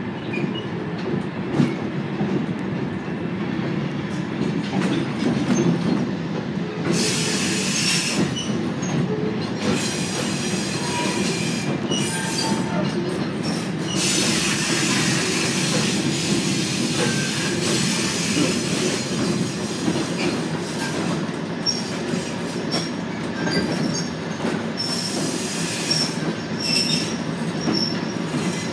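Train wheels heard from aboard a slow-moving caboose hop train: a steady low rolling rumble on the rails. Loud screeching wheel squeal comes in about seven seconds in and again for several seconds from about halfway through, with short high squeaks near the end.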